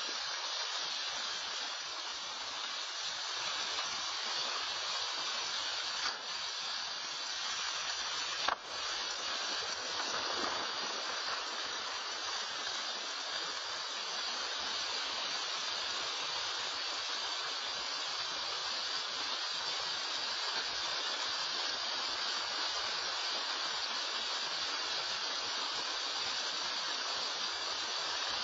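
Steady rushing hiss of a mudslide of wet earth and rain pouring down a hillside, heard through a Nest security camera's microphone. Two brief clicks come about six and eight and a half seconds in.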